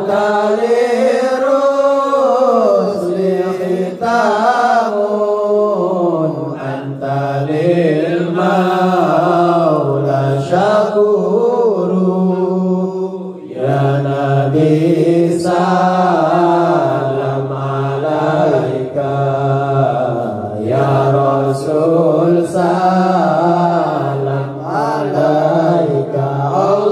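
A group of men chanting sholawat in unison, the Serakalan devotional praise of the Prophet, in long drawn-out melodic phrases with a short break about halfway through.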